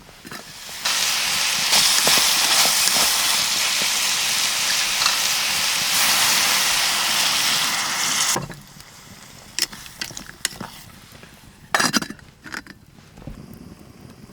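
Food sizzling in hot oil in a pan, starting about a second in and cutting off abruptly after about eight seconds. Quieter knocks and clinks follow.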